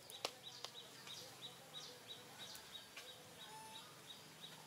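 A bird repeating one short, high chirp at an even pace, about three times a second. Two sharp clicks come just after the start.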